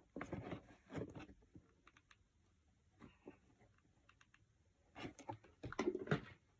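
Handling of the cardboard vending-machine parts: light clicks and knocks in two short flurries, one right at the start and another about five seconds in, with a few faint ticks between.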